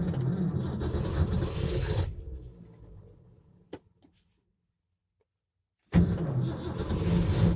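A 1967 Ford F100's engine being cold-started on full choke in freezing weather. It bursts into life for about two seconds, then dies away. After a second and a half of silence it starts up loudly again near the end.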